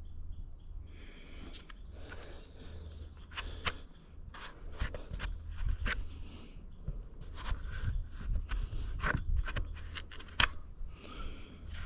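A metal hand tool digging and prying into a sawn willow slab to work out an embedded chunk of metal: irregular scraping with sharp clicks and cracks, starting about a second in.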